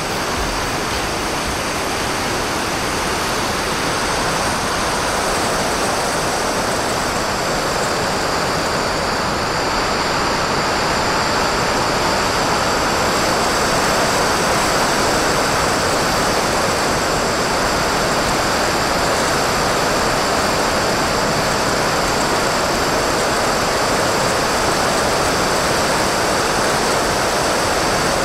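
Steady rush of wind over an HK BFG FPV glider's onboard camera in flight. The noise swells slightly about ten seconds in, with a faint high whine above it.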